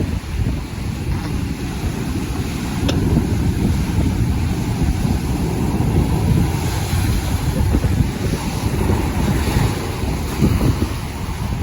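Sea waves washing, with wind gusting and rumbling on the microphone.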